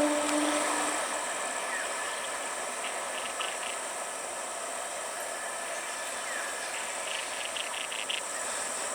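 The horn of an Indian EMU local train dies away about a second in. It leaves a steady hiss and a high, steady insect drone, broken by a few short chirping trills.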